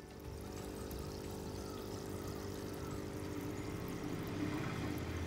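Aquarium air stone bubbling in the tank water: a steady wash of bubbling that grows a little louder near the end, over a low steady hum.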